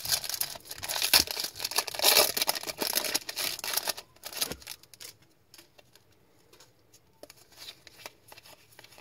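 A foil trading-card pack being torn open with a loud crinkling rip. About halfway through it gives way to faint rustling as the cards are slid out and handled.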